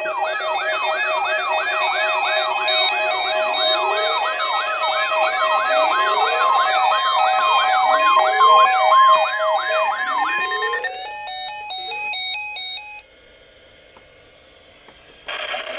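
Electronic siren-like alert tones: a rapid up-and-down sweep repeating about two and a half times a second over steady beeping tones, with slower rising sweeps every few seconds. The tones end about eleven seconds in. Near the end the broadcast's synthesized announcer voice begins.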